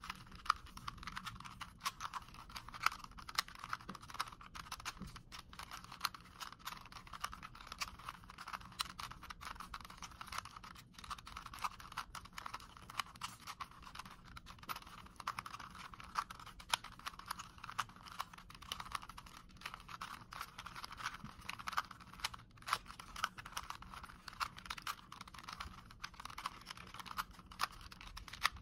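Plastic 3x3 Rubik's cube being twisted by hand: quick, uneven clicking and rattling as its layers turn, with louder snaps now and then.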